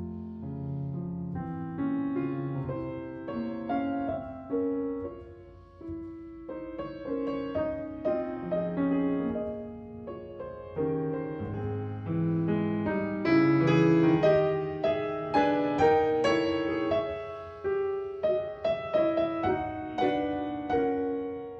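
Piano music: a gentle piece of single notes and chords that grows louder and fuller a little past halfway.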